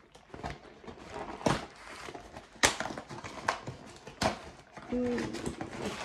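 Cardboard box and packaging being handled and opened: rustling with several sharp knocks and taps, the loudest a little before halfway.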